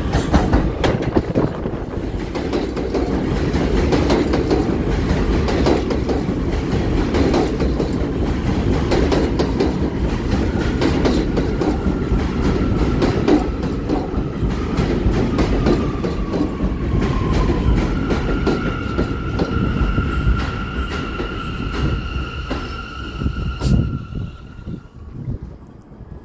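R179 New York City Subway train pulling into a station: a rumble of wheels clattering over rail joints, and a high whine that dips in pitch and then holds steady as the train slows. The train comes to a stop near the end.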